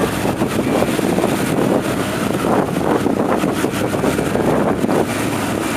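Twin Mercury OptiMax 250 V6 two-stroke outboards running steadily with the boat under way, with wind buffeting the microphone.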